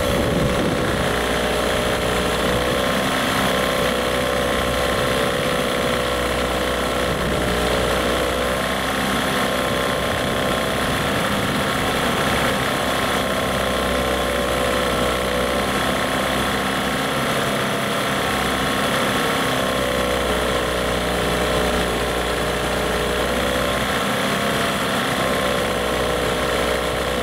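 15 hp Johnson-Evinrude outboard with its cowling off, running steadily in a test tank, its speed rising and falling slightly every few seconds. It is being run to check whether it overheats.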